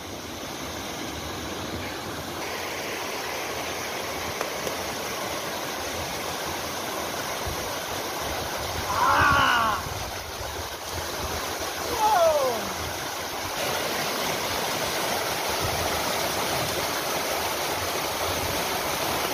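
Mountain stream rushing and cascading over smooth rock slabs, a steady close-up rush that grows louder in the second half as the water is approached. Two brief calls stand out over it about halfway through, the second falling in pitch.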